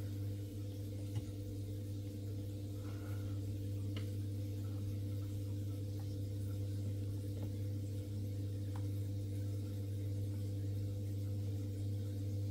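Steady low electric hum, with a few faint clicks as the CO2 regulator's valve is handled.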